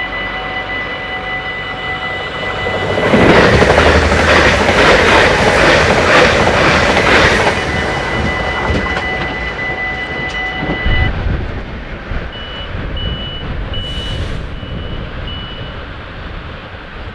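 Level-crossing warning bell ringing steadily while a passenger train passes loudly from about three to seven seconds in. The bell stops at about eleven seconds, and a few short, evenly spaced high beeps follow.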